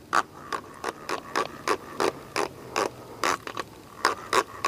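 Spinning reel being cranked to bring in a fish, clicking in an even rhythm of about three to four clicks a second over a faint steady whine. The reel is worn, and its gears seem to be slipping.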